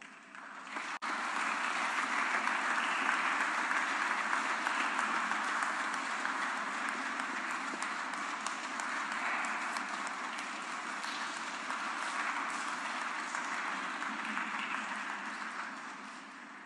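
Audience applauding: the clapping builds over about the first second, holds steady, and fades out near the end.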